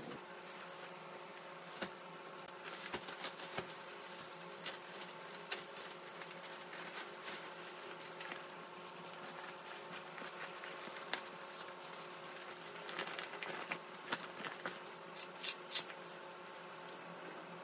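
Fabric duffel bag and its plastic wrapping rustling and crinkling as they are handled, with scattered short rustles and two louder, sharper ones near the end, over a steady low hum.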